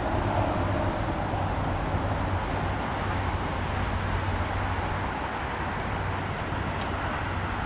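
Steady highway traffic noise, an even rushing sound with a low hum underneath.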